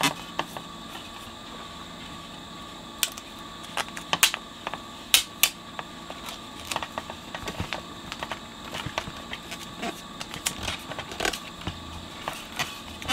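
Hands working a self-adhesive vinyl strip on a metal radio chassis plate: crinkling and irregular sharp clicks as the strip is peeled back and pressed down, the loudest clicks about three to five seconds in.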